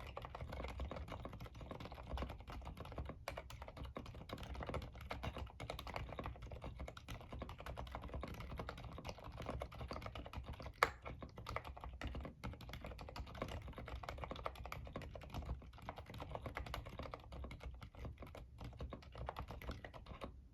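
Continuous fast typing on a mechanical keyboard with Gateron Aliaz silent tactile switches and OEM profile keycaps: soft, muted key clicks, with one sharper, louder keystroke about eleven seconds in.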